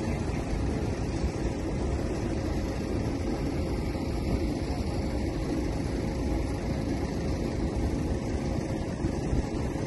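Steady low roar of distant engine noise across the airfield, with a faint steady hum running through it.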